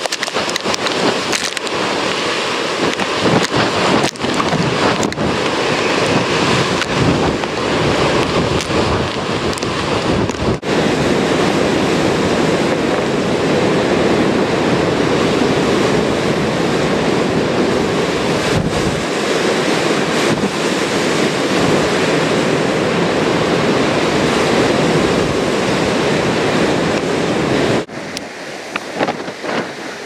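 Heavy storm surf from a tropical storm, crashing and churning against rocks, with strong wind buffeting the microphone. The sound drops abruptly near the end to a quieter mix of surf and wind.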